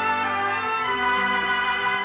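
Orchestral closing theme music of a 1940s radio program: held chords that move to a new chord about a second in.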